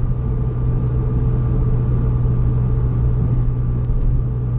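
Honda Fit's four-cylinder engine and drivetrain running steadily while driving, heard from inside the cabin: an even drone over low road rumble, with no change in pitch.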